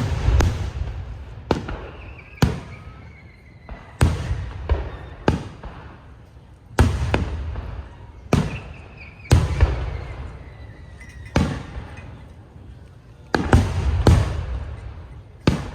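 Fireworks display: aerial shells bursting in a steady series of sharp booms, about one a second, each trailing off in a rolling echo.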